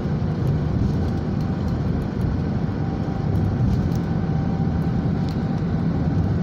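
Steady road noise inside a car moving at highway speed: a low rumble of tyres and engine that holds even throughout.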